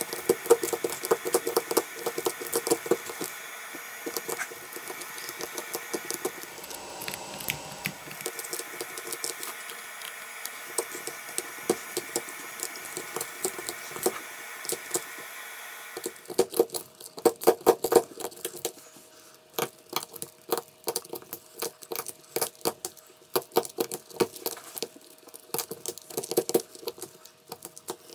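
Small hand tools clicking and scraping against a phone's glass and metal frame, many times over. For about the first sixteen seconds this is over the steady whir and hiss of a running machine, which then stops.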